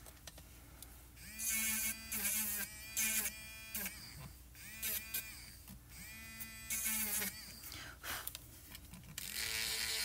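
Battery-powered AFMAT electric eraser running in several short bursts of a second or less, switched on and off as it rubs out spots on paper; each burst's whir bends up as the motor spins up and drops as it stops.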